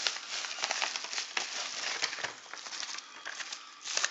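Padded paper mailer envelope crinkling and rustling with irregular crackles as it is handled and its contents are pulled out.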